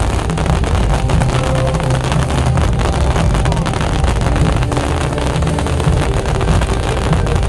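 Fireworks display going off without a break: a dense barrage of bangs and crackling over a steady low rumble.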